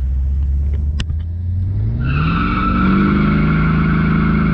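Buick 455 big-block V8 launched from a standstill, revving up hard and then holding. About two seconds in, the rear tires break loose and squeal steadily with wheelspin, because there is no traction. A sharp click comes about a second in.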